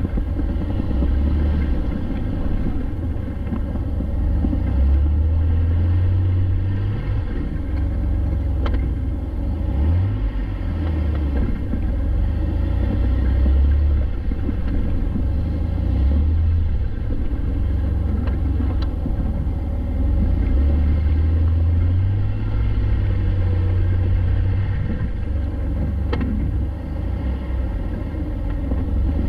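Jeep Wrangler being driven: a steady low engine and road rumble that swells and eases, with a few faint clicks.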